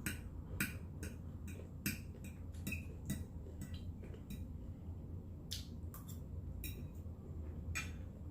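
Close-miked eating: chewing and mouth smacking, heard as sharp, irregular clicks a few times a second.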